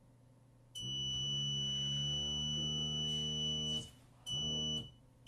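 Homemade Arduino alarm clock going off loudly: a low horn-like tone with a thin high steady beep over it. It sounds for about three seconds, cuts off, sounds again for a moment, cuts off, and starts again at the end.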